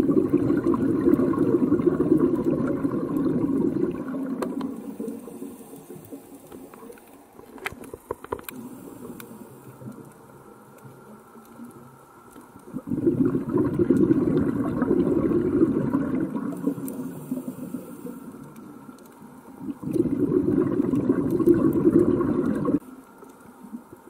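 Scuba diver's regulator breathing underwater: three long exhalations of bubbling, each lasting a few seconds, one at the start, one about halfway through and one near the end, with quieter underwater hiss between them.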